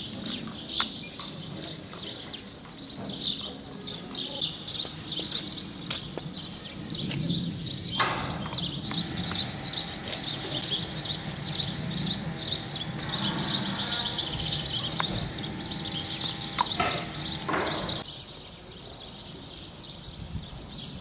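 Many songbirds chirping and singing at once, a dense steady chorus of quick high notes that cuts off abruptly near the end, leaving a quieter background.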